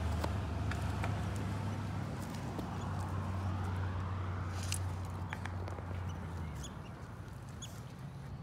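A low steady hum, like a motor running, cuts off about six and a half seconds in. Scattered faint clicks are heard, and faint short high chirps come near the end.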